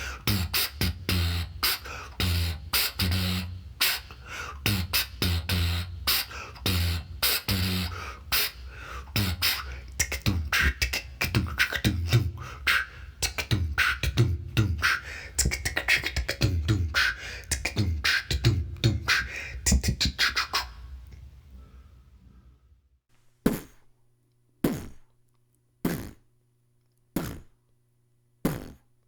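Human beatboxing: a fast, dense rhythm of vocal kick drums and snares that fades out about 21 seconds in. Near the end, a second beatbox recording gives five single sharp vocal hits about a second apart over a faint low hum.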